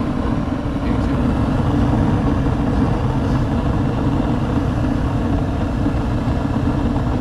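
Gas furnace running on a heat call, its burners and blower making a steady low rumble.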